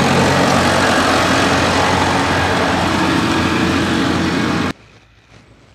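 Diesel engine of a farm tractor with a front loader running steadily close by; the sound cuts off abruptly near the end.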